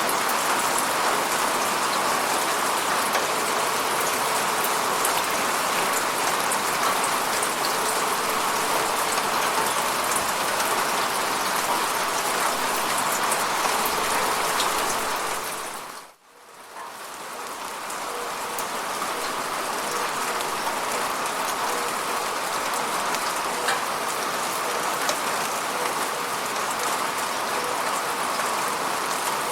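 Steady rain hitting a window, a dense even hiss with fine drop ticks. About halfway through it fades out to near silence and quickly fades back in.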